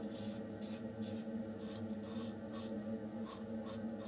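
RazoRock German 37 slant safety razor cutting stubble through lather in a quick run of short scraping strokes, about ten in four seconds.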